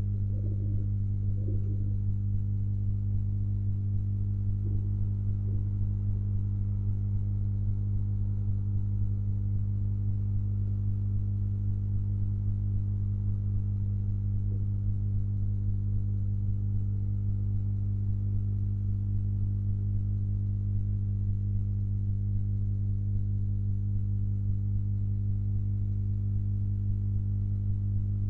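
Steady low electrical mains hum with a stack of evenly spaced overtones. A few faint, brief warbling sounds come in the first two seconds.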